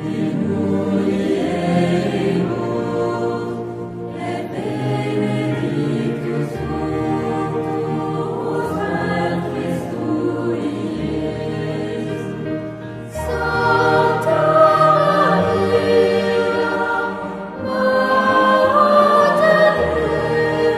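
Choir singing slow sacred music in long held chords, growing louder in the second half.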